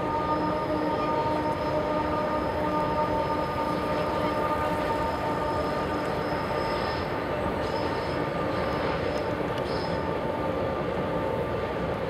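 Autorack freight cars of a passing freight train rolling by, a steady rumble with several steady tones held over it and a faint high wheel squeal that comes and goes in the second half.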